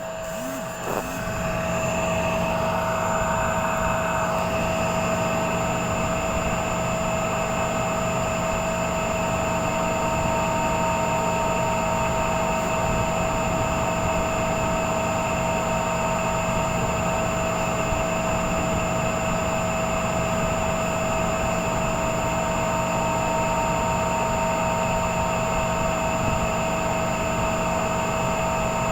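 Three-phase induction motor on a star-delta starter running up about a second in, then running steadily with a constant whine over a broad hum. This running noise is the motor's sound problem.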